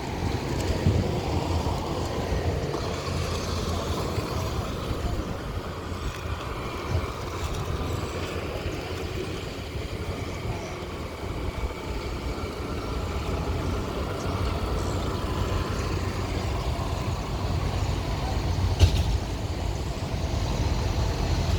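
Heavy earthmoving machinery at work: a steady low engine drone with faint whining tones above it, and one sharp knock near the end.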